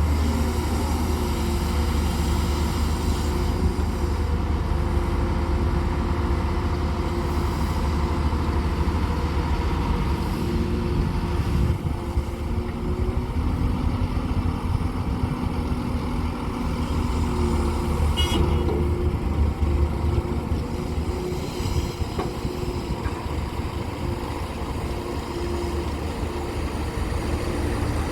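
Excavator's heavy diesel engine running steadily while it works, with a low rumble and a pitched tone that comes and goes.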